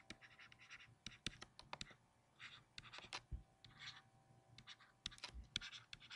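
Faint scratching and tapping of a stylus on a tablet screen as words are hand-written in block capitals, in short, irregular pen strokes.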